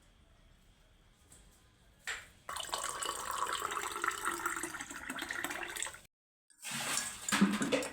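Water running from a tap for about three and a half seconds, with a click just before it starts. After a brief cut, another, louder burst of running water splashes.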